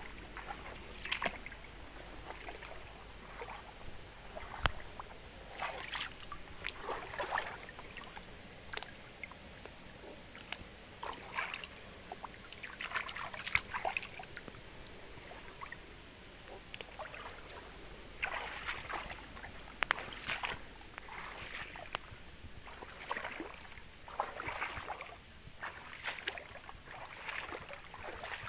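Water in a shallow stream splashing and sloshing in short, irregular bursts, about one every second or two, over a faint steady trickle.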